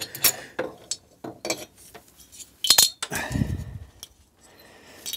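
Light metal clinks and taps from engine parts and hand tools being handled while a two-stroke engine's cylinder head and gasket are taken off its studs. A louder knock with a short low thud comes about three seconds in.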